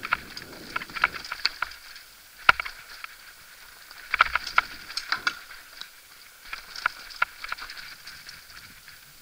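29er mountain bike rattling over a rocky dirt trail: a stream of irregular sharp clicks and clatter as the bike jolts over stones and roots, with the loudest knock about two and a half seconds in.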